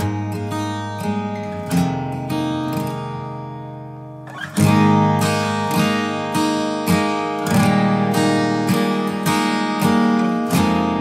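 Background music: a strummed acoustic guitar playing steady chords, with a brief break about four seconds in before the strumming comes back louder.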